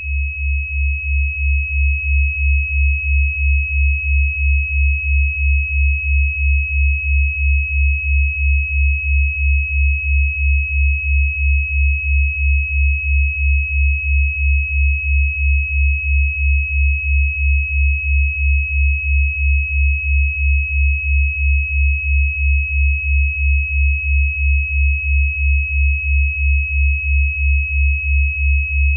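Synthesized 'healing frequency' tones: a steady high-pitched tone held without change, over a low hum that pulses evenly about two and a half times a second.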